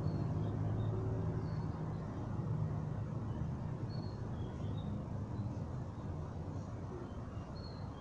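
A low, steady rumble that slowly fades, with faint short high chirps scattered through it.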